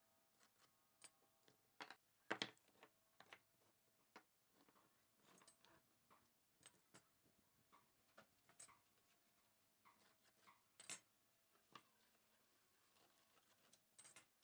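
Quiet, scattered clicks and light taps of small wooden pieces being handled, with one louder knock about two seconds in.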